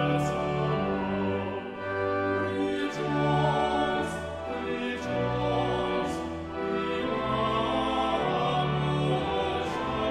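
Slow closing music of long held chords, the notes changing every second or so.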